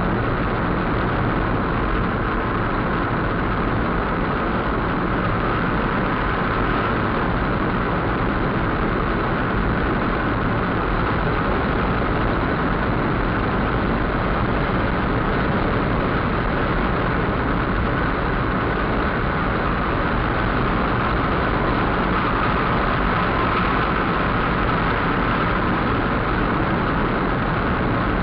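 Steady engine and tyre noise inside a moving car's cabin at highway speed.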